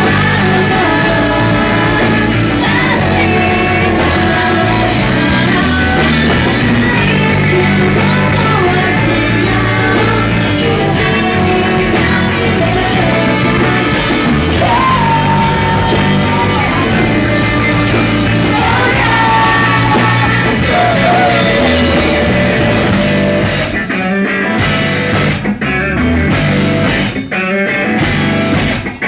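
Live math rock band playing at full volume: two electric guitars, electric bass and drums with a woman's sung lead vocal. In the last few seconds the band plays stop-start hits with brief silent breaks between them.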